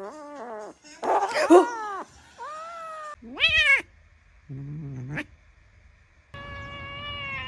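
A cat meowing and yowling in a string of separate calls, some sliding up and down in pitch, then one long held yowl starting about six seconds in.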